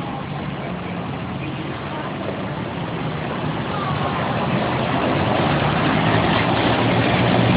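City street traffic: vehicle engines running with a steady low hum, growing slowly louder, with voices of passers-by mixed in.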